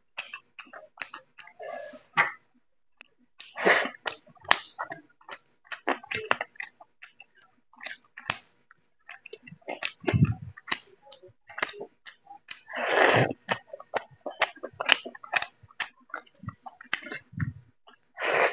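A person eating roti with chicken curry by hand: wet chewing and lip-smacking heard as many short clicks and smacks, with two longer, louder mouth noises about four and thirteen seconds in.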